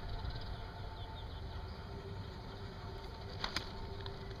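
Diesel-hauled train pulling slowly away: a steady low rumble and engine hum, with two sharp clanks about three and a half seconds in. Faint bird chirps early on.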